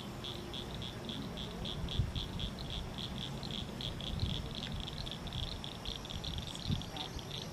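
An animal calling in a steady rhythm of high chirps, about five a second, over a low wind rumble on the microphone.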